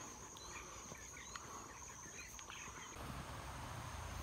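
A steady high-pitched insect drone with scattered short bird chirps. About three seconds in it cuts off, and a low, even outdoor rush takes over.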